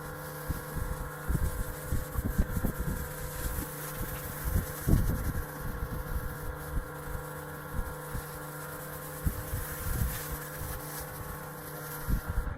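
An engine hums steadily in the background while wind buffets the microphone in uneven low gusts.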